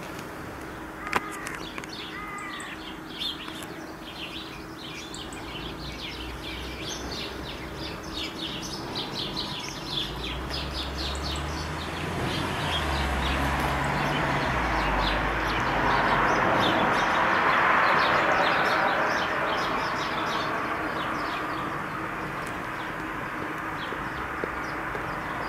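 Small birds chirping and twittering in quick, overlapping calls, busiest through the first half. Around the middle a low rumble and then a broad rushing noise swell and fade.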